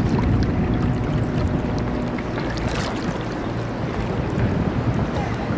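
Steady low rumble of a ferry under way, heard from its deck, with wind noise on the microphone and the wash of the sea.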